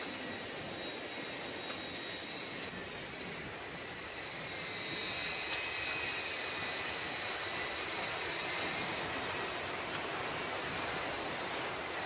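Steady, even rush of a waterfall's water heard from further along the forest trail, with a high, steady shrill note over it that grows louder about five seconds in.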